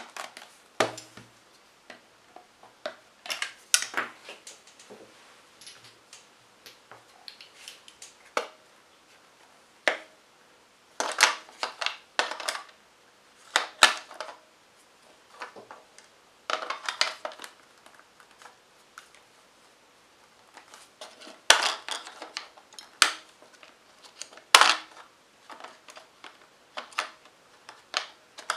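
Irregular sharp clicks, taps and clatters of a plastic digital alarm clock's battery compartment and its batteries being handled, in clusters, as the batteries are forced in against a battery spring that is too stiff.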